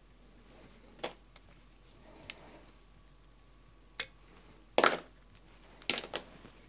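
Fly-tying scissors and tools handled at the vise: a few short, sharp clicks and snips as the tinsel is trimmed, the loudest cluster about five seconds in and another about a second later.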